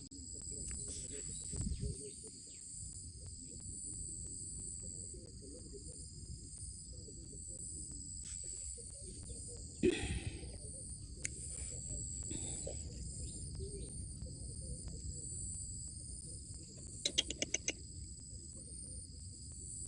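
Steady high-pitched insect chorus over a low rumbling noise. A sharp knock comes about ten seconds in, and a quick run of clicking calls comes near the end.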